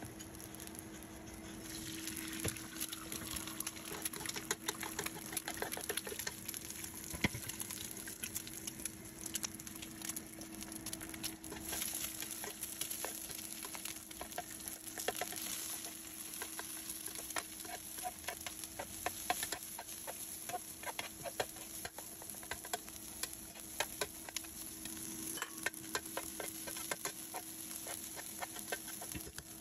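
Egg frying and sizzling in hot oil in a nonstick pan, with a utensil repeatedly scraping and tapping on the pan as the egg is scrambled and stirred through the rice. The sizzle picks up about two seconds in.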